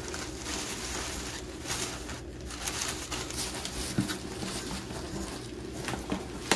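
White packing paper rustling and crinkling as hands work it inside a cardboard shipping box, with small handling knocks. A steady low hum sits underneath.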